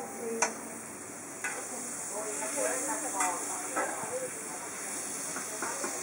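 Thai roti pancake frying in oil on a flat round griddle, a steady sizzle that starts about a second and a half in. Before the sizzle there is a short metal clink.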